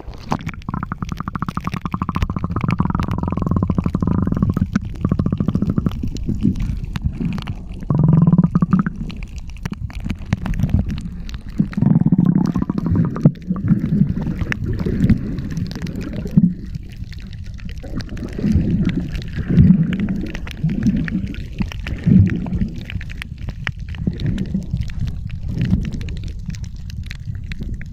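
Muffled underwater sound, as heard by a submerged camera: a low gurgling rumble of moving water with irregular louder pulses.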